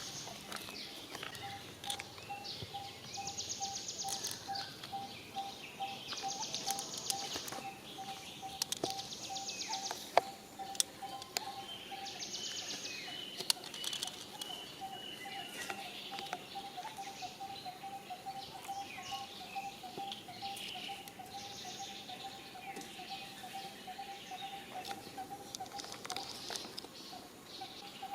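Outdoor wildlife ambience: a short note repeated several times a second runs through most of it, with buzzy high trills every few seconds, bird calls and scattered clicks and rustles.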